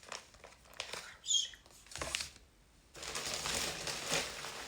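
Packaging being handled for an unboxing: scattered rustles and taps, a short squeak about a second in, then steady crinkling and rustling of wrapping from about three seconds in.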